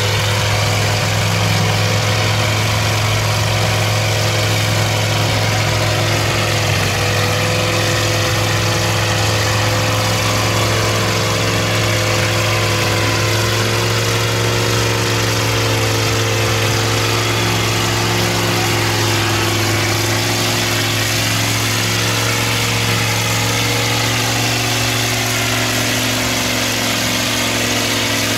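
Engine of a lifted VW bus mud truck on paddle tires running hard at a nearly steady pitch as it churns through deep, thick mud.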